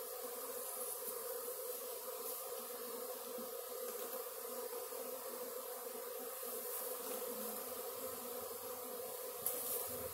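A swarm of honey bees flying around their cluster and hive box, a steady buzzing hum of many bees, with a brief bump near the end.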